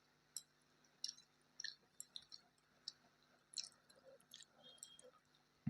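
Faint mouth sounds of someone chewing food: irregular soft clicks and wet smacks, a few a second, with one sharper click at the very end.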